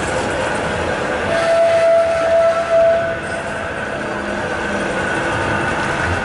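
Manchester Metrolink Bombardier M5000 tram running past on street track, a steady rumble of wheels on rail and traction equipment. About a second in, a clear steady tone rises above it and holds for nearly two seconds.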